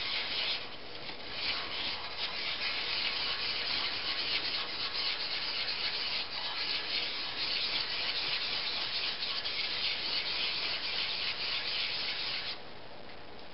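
The back of a vintage steel socket chisel being rubbed back and forth on wet/dry sandpaper to polish it flat near the edge, a steady scratchy scraping that stops abruptly near the end.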